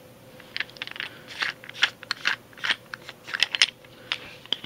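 Irregular small clicks and scrapes of a metal hex key working in the CO2 screw at the base of a plastic airsoft pistol magazine, about a dozen sharp ticks over a few seconds.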